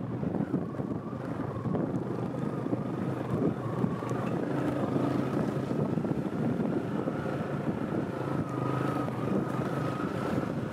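A vehicle engine running steadily while on the move, with wind buffeting the microphone and a faint wavering whine above the rumble.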